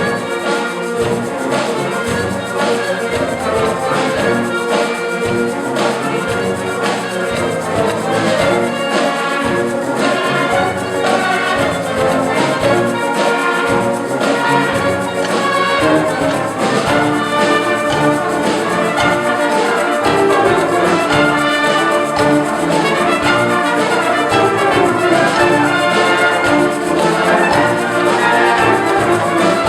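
Instrumental music with orchestral brass over a steady beat.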